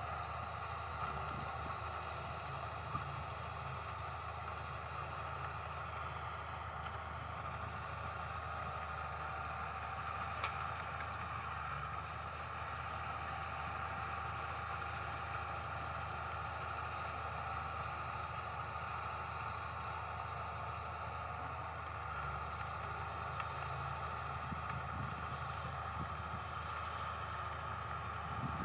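Heavy diesel engine of a bulldozer running steadily, with a couple of brief knocks.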